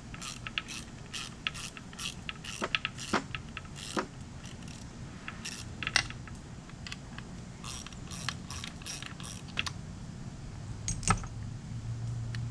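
Hand ratchet wrench clicking in several quick runs with short pauses, backing out the mounting bolts of an outboard's vacuum lift pump.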